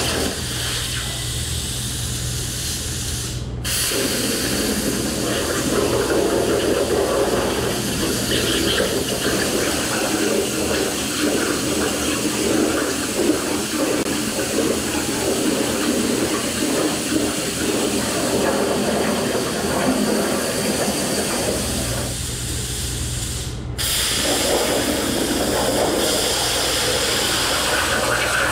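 Plasma arc of a Langmuir Crossfire Pro CNC plasma table hissing steadily as the torch cuts quarter-inch aluminum sheet. The sound cuts out sharply twice, a few seconds in and again about five seconds before the end.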